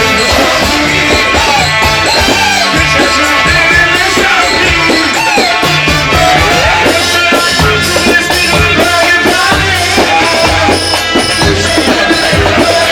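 Loud Egyptian shaabi music: a melody with bending, gliding notes over a steady drum beat.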